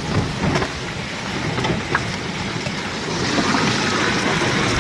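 Muddy floodwater rushing and splashing against a car, heard from inside it, with a few short knocks in the first two seconds.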